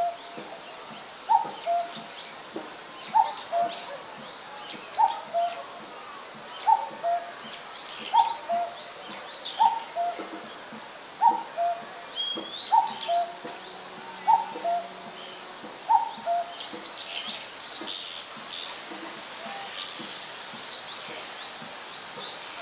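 Common cuckoo repeating its two-note "cuck-oo" call, the second note lower, steadily about once every two seconds. From about a third of the way in, harsh high squeaky calls of Japanese pygmy woodpeckers come in, loudest near the end.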